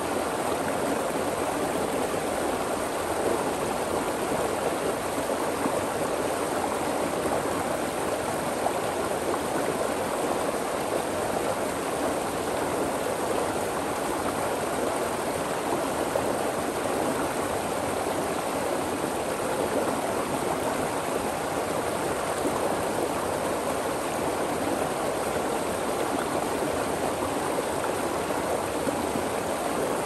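A rocky stream flowing steadily, water rushing and splashing over and between stones.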